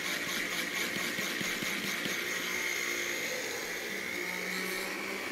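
Countertop blender running steadily, grinding hot toasted sesame seeds and sea salt into a dry powder, with a steady high whine.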